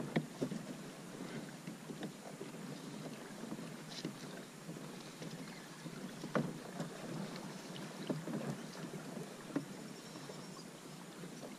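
A plastic kayak on calm water: faint water sounds against the hull, with scattered light knocks and clicks from handling gear on board.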